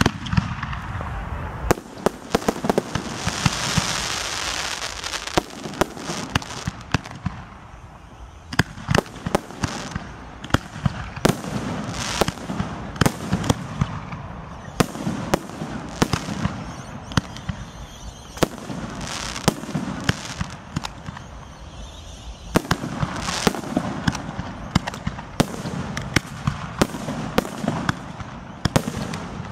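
Aerial fireworks display: shells launching and bursting in quick succession, a continuous run of sharp bangs and cracks, with a hissing stretch about three to five seconds in.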